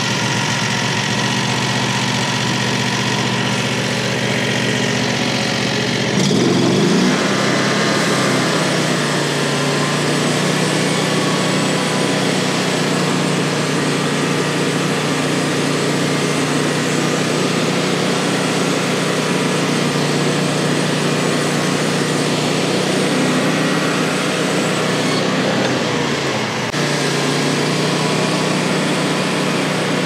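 Frontier OS35 portable band sawmill running, its warmed-up gasoline engine steady and smooth. The engine note shifts in pitch about six seconds in and dips briefly near the end.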